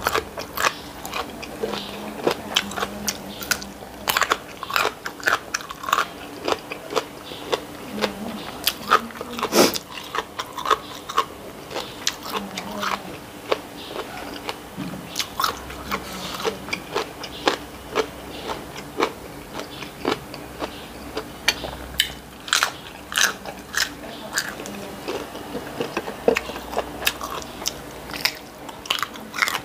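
A person chewing and crunching food into a clip-on microphone, with dense, irregular crisp crunches and mouth clicks throughout. A faint steady hum sits underneath.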